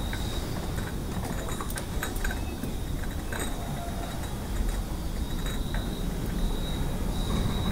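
Night ambience: a low steady rumble and a steady high cricket trill, with a few faint clicks and clinks from a tray of tea glasses as it is carried.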